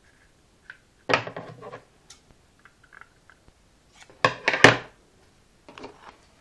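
Handling noise: three short clusters of knocks and clatter, like hard objects being picked up and set down. The loudest cluster comes around four seconds in and a smaller one near the end.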